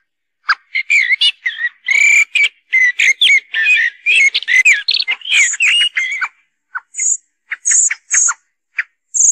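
Common blackbird song played as a hunting lure: a dense run of varied warbling phrases for about six seconds, then a series of short, sharp chak calls mixed with brief high squeaky notes.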